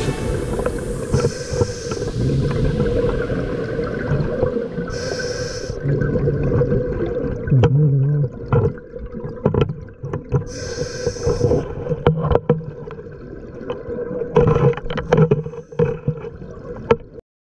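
Diver breathing through a regulator underwater: two hissing breaths about five and eleven seconds in, low bubbling gurgles in between, and scattered knocks and scrapes of gear against the camera housing.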